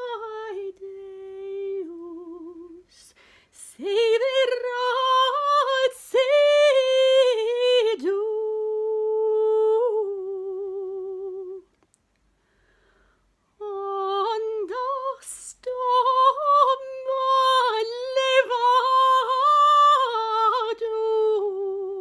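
A solo soprano voice sings a slow medieval song melody unaccompanied, holding long notes with vibrato. The singing breaks off for about two seconds around the middle.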